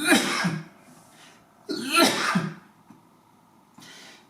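A man coughing to clear his throat, twice, about a second and a half apart.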